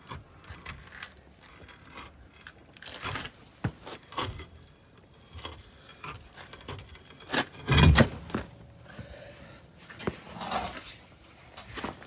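Irregular metallic clinks, jingles and scrapes of hand work on a bus's front wheel hub, with one heavier thump about eight seconds in.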